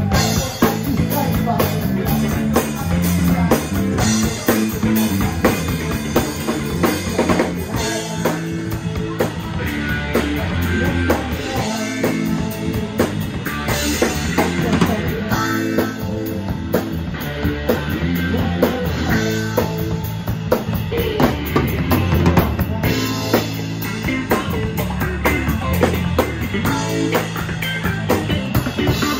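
Live rock band playing: electric guitar over a drum kit and bass guitar, with steady bass notes and busy drumming throughout.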